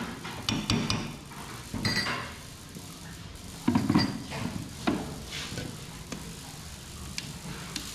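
Stainless steel mixer-grinder jar being handled: scattered knocks and clinks as it is seated on the motor base and its lid fitted, the loudest about two and four seconds in. The motor is not running.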